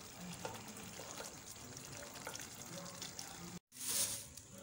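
Pot of thick fried beans in palm-oil sauce simmering, a soft bubbling hiss with a few faint plops. About three and a half seconds in, the sound cuts out for a moment and a short hiss follows.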